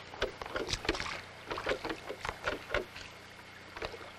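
Dinghy being rowed: a quick string of oar splashes and knocks, thinning out and quieter after about three seconds.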